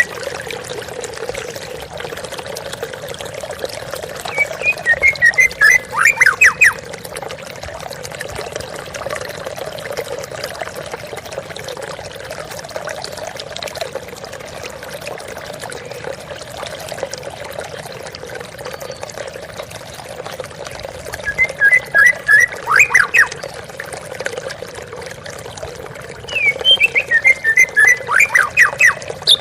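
Steady rush of waterfall water, with a white-rumped shama singing over it. The bird gives three phrases of quick chirping notes that end in downward-sweeping whistles: about four seconds in, about twenty seconds in, and again near the end.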